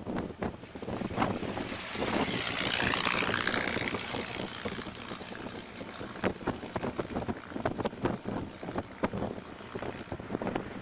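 Wind rushing over the microphone of an open Ford Model T driving at road speed, with steady engine and road noise beneath and frequent crackling buffets. The rush swells louder about two seconds in and lasts for a couple of seconds.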